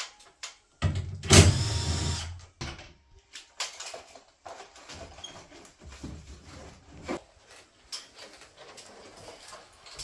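Knocks, clicks and scraping as parts of a ceiling cassette air conditioner are handled and taken apart. The loudest is a bang about a second in that rings on briefly.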